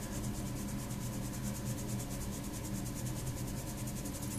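Background room noise: a steady low hum with a fast, even, faint high ticking, and no distinct event.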